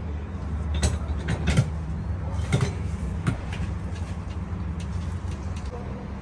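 Metal clanks and creaks of a hand-lever juice press being worked to squeeze pomegranate halves, as a few sharp knocks, the loudest in the first three seconds. A steady low rumble lies underneath throughout.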